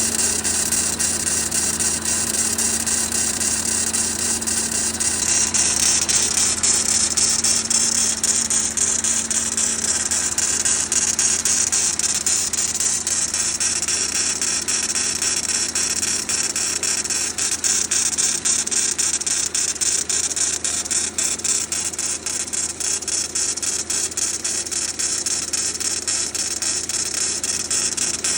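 Renault Duster's 2.0-litre F4R four-cylinder petrol engine running after a cold start, with a rapid, steady knocking. The owner says this knock lasts about two minutes from cold, then goes away until the next morning, and does not know its cause.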